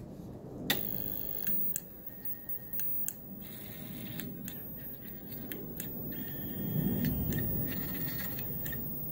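Small stepper motors homing under Grbl control: a whine that shifts in pitch as they step, grows louder about seven seconds in, and is broken by several sharp clicks, with the loudest click about a second in.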